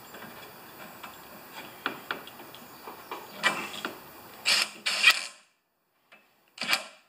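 Hand tools and metal parts of a snow thrower's engine compartment clicking, scraping and clattering as they are handled, with a few short louder clatters in the second half.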